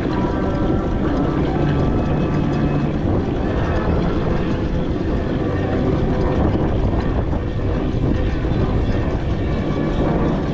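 4-inch scale McLaren steam traction engine on the move, giving a steady, unbroken running noise.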